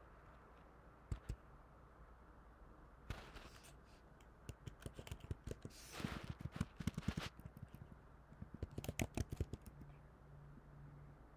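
Fast typing on a computer keyboard: a couple of single key clicks about a second in, then a long run of rapid keystrokes from about three to seven seconds in and a shorter run around nine seconds in.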